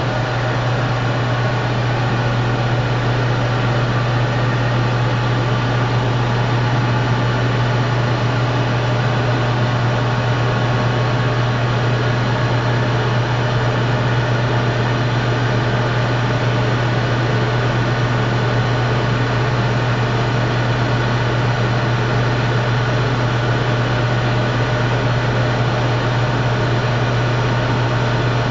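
Sharp ES-KS70K-P top-loading washing machine running steadily: a constant low motor hum under an even whirring noise, with no pauses or changes.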